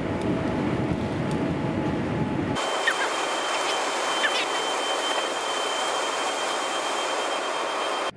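Steady airliner cabin noise, a dense low rumble, aboard a Boeing 787. About two and a half seconds in it cuts abruptly to a brighter hiss with no low rumble, a steady high whine and a couple of short chirps.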